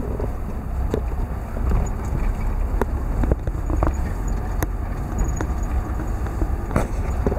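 Inside a car driving on a rough dirt road: a steady low rumble from the engine and tyres, with frequent short knocks and rattles from the cabin and suspension over bumps.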